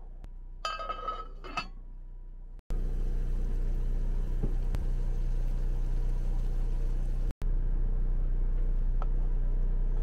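A pot of blueberries, water and lavender simmering and boiling on a stovetop while a wooden spoon stirs it, under a steady low hum. A brief ringing clink comes about a second in, and the sound jumps louder and steadier at two cuts.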